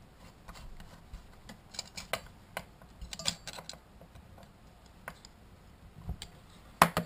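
Screwdriver working a screw on a Stihl 026/024 chainsaw's side plate: faint scattered metal clicks and ticks, with a sharper click near the end.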